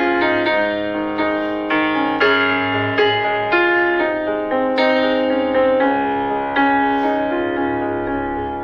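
Background piano music: a slow melody of struck notes and chords, each left to ring out and fade.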